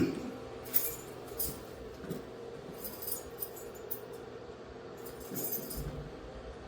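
A knock at the start, then a scattering of sharp metallic clicks and clinks as metal parts of a coin-operated washer are handled.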